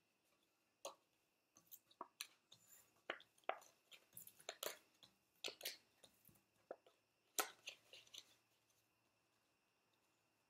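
Playing cards being picked up off a glass tabletop and squared into a deck: a run of faint light clicks, taps and slides that stops about eight seconds in.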